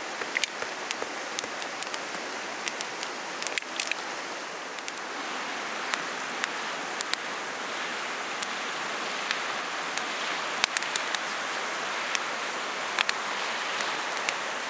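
Rain falling steadily, with many sharp ticks of single drops striking a nearby surface; the hiss grows a little louder about five seconds in.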